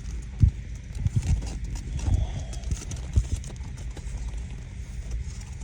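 Footsteps of someone walking over pasture ground: irregular low thuds, about one or two a second.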